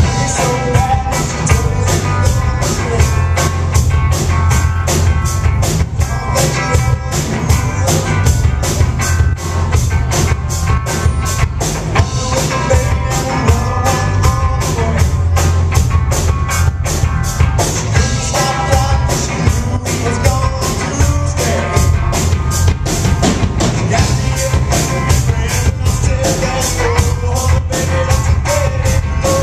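Rock music with a steady, fast drum-kit beat and a bass line.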